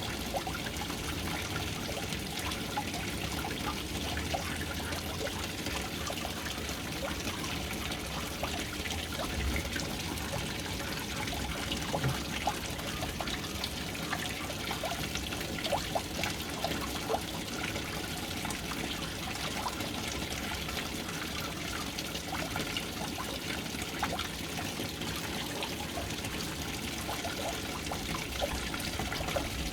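Water pouring and trickling steadily into a household water tank, with scattered small splashes and drips.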